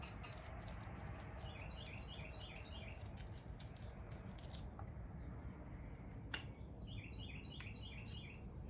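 A songbird singing two quick trills of repeated short chirps, over faint scattered clicks of hands taking a plastic cover off a small cordless chainsaw.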